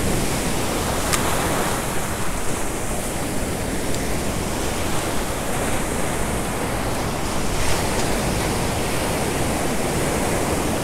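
Ocean surf breaking and washing in as white water around the wader, a steady rush of noise.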